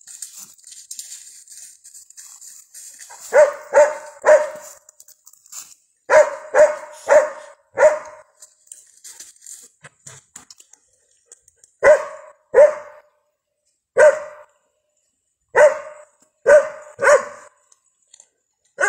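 Cadaver dog barking in short clusters of two to four barks, about a dozen in all, at the spot in the drained grotto where it is alerting.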